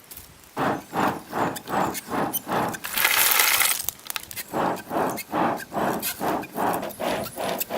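Stone being ground or scraped back and forth against stone in quick, even strokes, about three a second, with a louder, harsher scrape about three seconds in.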